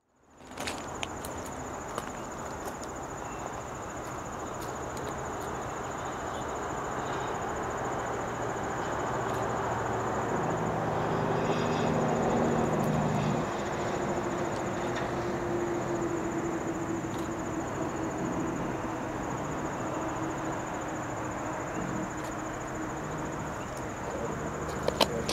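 Steady high-pitched chirring of insects, with the low drone of distant EMD diesel locomotives, a GP38-2 and a GP35, running as they approach. The engine sound swells toward the middle.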